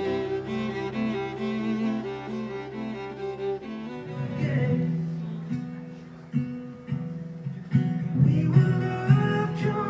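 Instrumental music: held string notes, then a change about four seconds in to a passage of plucked string notes.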